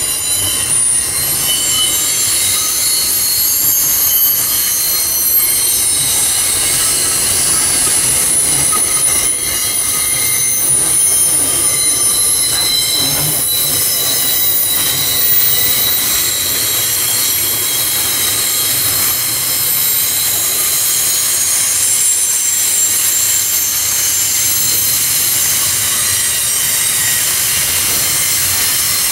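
Steel wheels of long SCT PQIY freight wagons squealing on a tight curve as the train rolls past. Several high-pitched tones overlap and waver, over a low rumble from the wagons.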